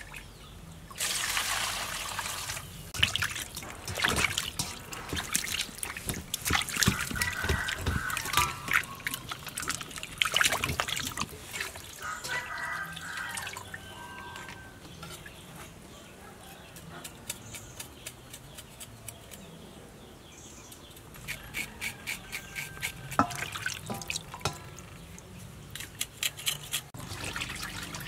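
Water splashing and sloshing in a stainless steel bowl as a whole raw chicken is washed by hand, with dripping. The splashing is busiest in the first half and settles before a run of quick splashes near the end.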